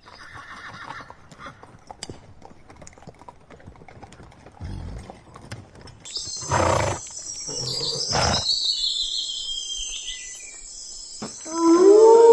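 Animal-call sound effects. After a few quiet seconds come two loud noisy bursts and a long falling high-pitched cry, and near the end a long howl begins.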